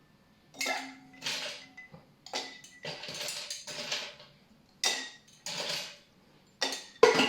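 Ice cubes being dropped into a metal cocktail shaker, a series of separate clattering scoops, some with a brief ringing of the tin.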